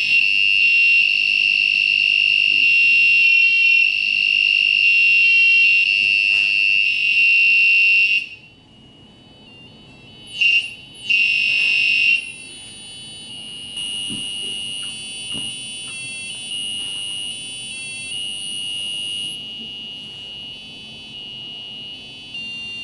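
Piezo buzzer of a homemade Arduino optical theremin, whose pitch is set by light on a photoresistor, sounding a high-pitched, buzzing electronic tone that flickers in small steps. It is loud for about eight seconds, cuts out, comes back in two short bursts, then carries on more quietly.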